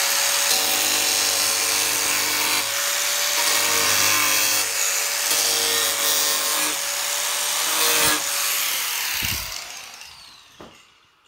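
Angle grinder with a thin cutting disc cutting along a crack in a fibreglass bonnet scoop: a steady motor whine over the hiss of the disc in the fibreglass. About eight seconds in it is switched off and its whine fades as it spins down to a stop.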